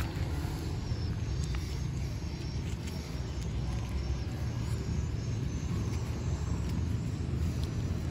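Steady low outdoor rumble, with a few faint clicks and leaf rustles as ground-cherry fruits are picked by hand from the plants.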